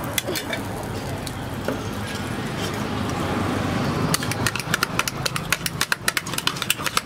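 Stall background noise with a few clinks, then, from about four seconds in, metal spatulas clattering rapidly against an iron griddle, several strikes a second.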